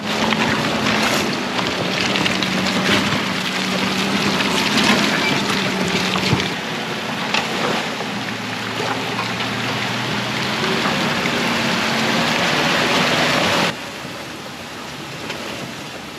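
A vehicle driving over a rough road: a steady engine hum under a loud rush of wind and rattling. The rush drops suddenly to a quieter level near the end.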